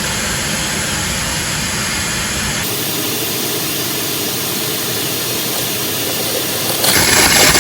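Shop vacuum motor running steadily, pulling suction through a vacuum regulator on the engine's oil filler so that oil is held in while the drain plug is out. Its sound shifts about two and a half seconds in and grows louder and hissier near the end.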